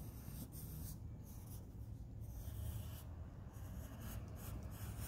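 Graphite pencil scratching on drawing paper in a series of short, repeated strokes as a line is thickened.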